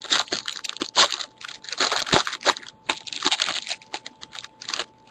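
A trading-card pack's wrapper crinkling and tearing as it is handled, in irregular crackly bursts.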